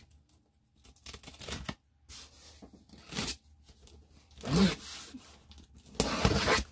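Packing tape on a cardboard box being slit and ripped open with a small cutter: scratchy tearing strokes in several bursts, the loudest near the end.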